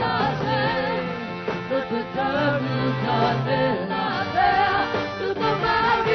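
Live rock band playing a song, with a wavering lead melody over a steady bass line.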